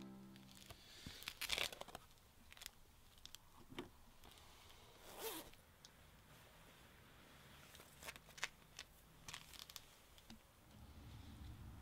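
Faint clothing rustle as a dark jacket is opened and handled, with scattered short clicks and crinkles. Near the end comes the crinkle of a sheet of paper being handled.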